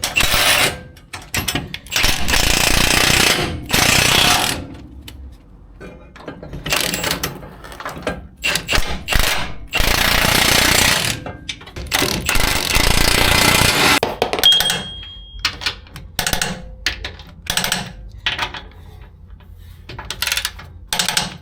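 Impact wrench driving bolts, in repeated bursts of one to two seconds, with short clicks and clanks of tools and hardware between the bursts.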